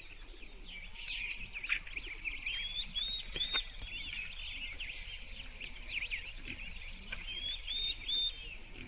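Small birds chirping and twittering, many quick high arching notes overlapping throughout.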